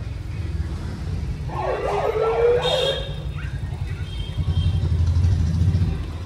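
Maruti Suzuki Swift's engine running at low speed as the car pulls out of a garage, growing louder as it comes close near the end. About two seconds in there is a brief wavering squeal that glides up and down.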